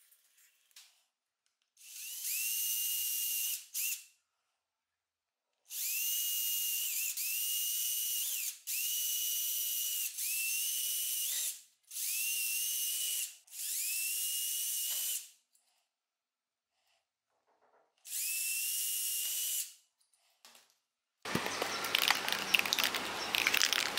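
Small high-speed power drill running in about seven short bursts of one to two seconds, each spinning up to a steady high whine, with brief pauses between. Near the end a louder, rougher scraping noise with sharp clicks takes over.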